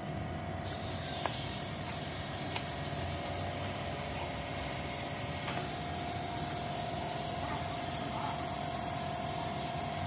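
A steady hiss, with a faint steady whine underneath, that fills in about a second in and keeps going.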